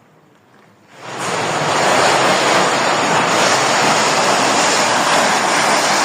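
A loud, steady rushing noise swells up about a second in, holds, and cuts off abruptly at the end.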